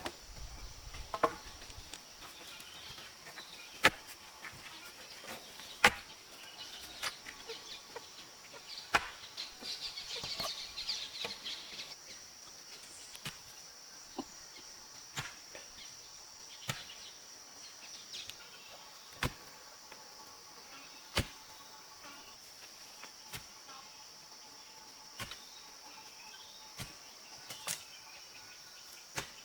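Sharp, single knocks of a hand tool striking, one every one to three seconds and irregularly spaced, over a steady high chorus of insects.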